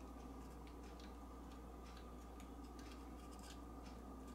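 Faint, irregular little clicks and ticks of small plastic and metal RC helicopter parts being handled and fitted by hand, over a steady low hum.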